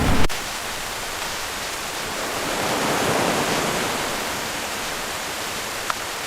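Heavy rain pouring down, a steady hiss that swells a little in the middle.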